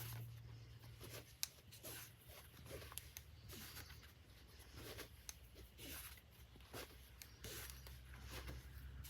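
Faint rustling of cotton quilting-fabric squares being flipped through one after another, a soft swish every second or so, with a small tick about a second and a half in.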